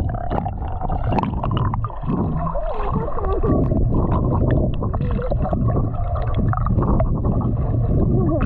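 Muffled underwater sound from a submerged action camera: gurgling water and bubbles over a steady low rumble.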